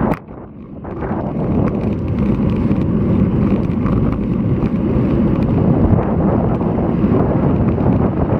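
Strong wind buffeting an action camera's microphone on a moving bicycle, a heavy low rumble. It drops away abruptly just after the start and builds back within about a second, then holds steady.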